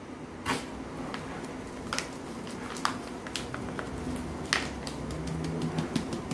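Whole-wheat flour being measured by the glass: a glass tipped out into a wooden bowl, then flour poured from a plastic bag into the glass, giving soft rustling and scattered light clicks of the bag and glass, denser near the end.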